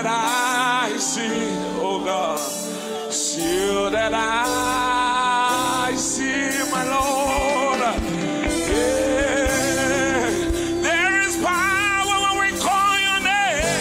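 Live gospel music: a male lead singer sings long held notes with vibrato over a band, with the bass coming in about three and a half seconds in.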